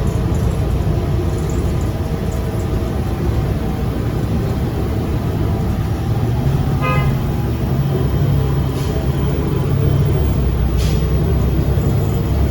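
City transit bus running, heard from inside the cabin as a steady low engine and road rumble. A short toot sounds once about seven seconds in.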